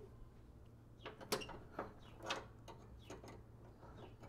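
Faint metallic clicks and scrapes of a riding mower deck's linkage arm and hairpin cotter pin being fitted by hand, with the sharpest click just over a second in.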